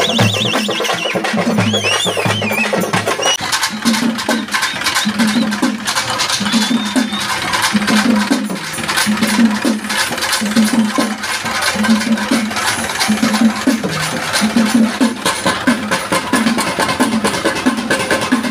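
Thavil drum ensemble playing a fast, dense rhythm, with a low beat repeating steadily about three times every two seconds.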